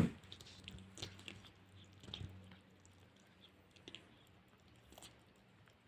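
A sick kitten grunting and snuffling faintly through a congested, runny nose, with small wet clicks and snorts scattered through. A pig-like grunt in the breathing is the sign of a cold with a blocked nose.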